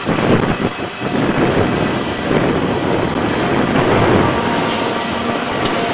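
Long freight train of covered hopper cars rolling past, a steady rumbling noise of wheels on rail, with a couple of short sharp clicks near the end.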